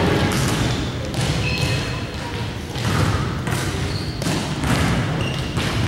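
A volleyball thudding and bouncing on a hardwood gym floor several times at irregular intervals, echoing in the hall, with a few brief sneaker squeaks.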